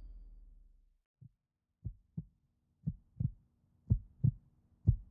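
The tail of the music fades out in the first second. Then a heartbeat sound effect comes in: paired low thumps, lub-dub, about once a second, growing louder, over a faint steady hum.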